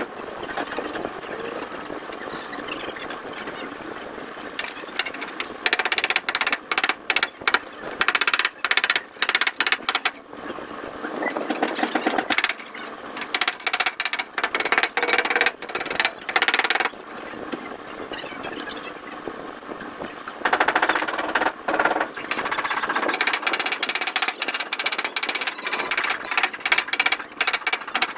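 Rapid, fast-repeating tapping of a dent-repair tool on a car's body panel, in three long runs of several seconds each, with pauses between.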